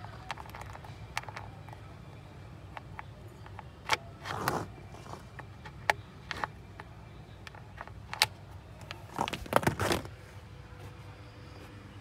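Clicks and rattles of a speaker cable plug being pushed and turned in its socket on a subwoofer enclosure: single sharp clicks about 4, 6 and 8 seconds in, with a burst of clicking and rattling near the end, over a steady low hum.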